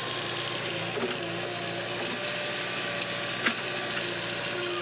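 JCB backhoe loader's diesel engine running steadily under load as the backhoe arm digs, heard from the operator's cab, with a sharp knock about three and a half seconds in.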